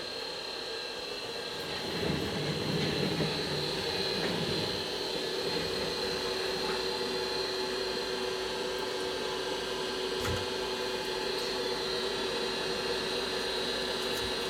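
Hot air rework station blowing steadily: an even rush of air with a constant high whine and a lower hum. It is heating the solder under an iPhone 7 Plus audio chip to lift it off the board.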